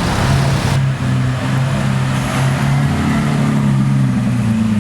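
Supercar engine running at low revs, its note holding steady, then climbing somewhat near the end.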